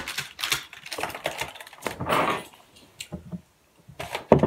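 A bunch of keys clicking and jingling as they are picked up and handled, with rustling from handling and a heavier knock near the end.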